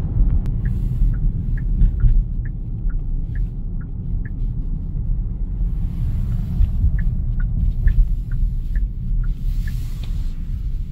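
Turn-signal indicator ticking inside the cabin of a Genesis GV80, about two ticks a second in two runs with a short pause between them, over a steady low road and engine rumble. No radio sound is heard alongside it; this car's audio cuts out whenever the indicator is on, which is the fault it is being replaced for.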